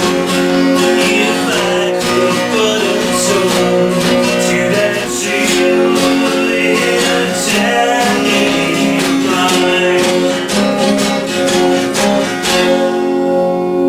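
Background music: strummed and plucked acoustic guitar with held notes.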